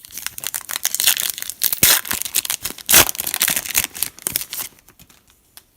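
A trading card pack wrapper being torn open and crinkled by hand, with the sharpest rips about two and three seconds in; the crackling stops just before the end.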